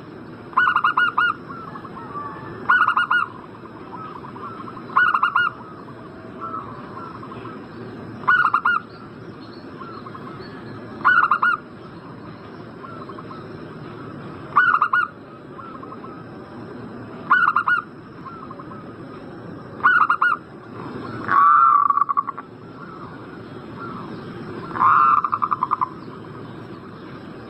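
Zebra dove (perkutut) cooing: short pulsed coos repeated every two to three seconds, with two longer, wavering calls near the end. A faint steady high whine runs underneath.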